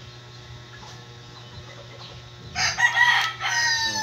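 A rooster crowing once, starting about two and a half seconds in, in two loud strained parts, the last note falling away at the end.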